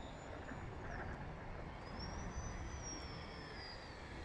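Faint, thin high whine of a small RC plane's electric brushless motor and propeller over low wind noise. The whine comes in about two seconds in, rises a little, then slowly sinks in pitch.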